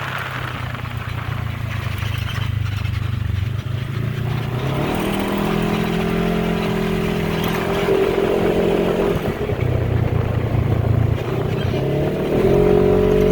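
Polaris ATV engine running under throttle while riding. Its pitch climbs about five seconds in, eases back a few seconds later, and climbs again near the end.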